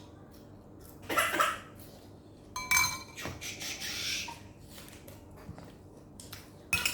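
Cutlery clinking and clattering against dishes during a meal. Short sharp clatters come about a second in and again near three seconds, with a brief hiss around four seconds.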